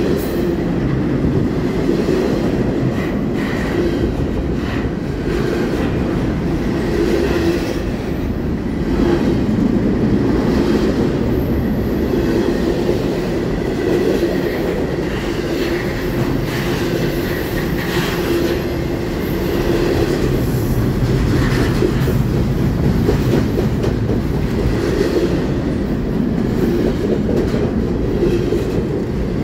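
Double-stack container freight train rolling past close by: a steady rumble of steel wheels on rail, with repeated clicks as the wheels cross rail joints.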